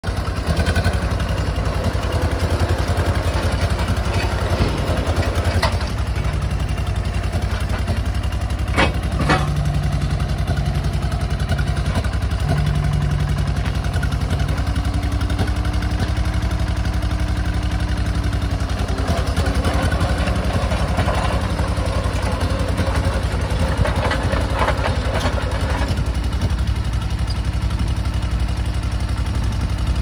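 John Deere 440 crawler dozer's engine running steadily as the machine moves on its tracks, with two sharp knocks about nine seconds in.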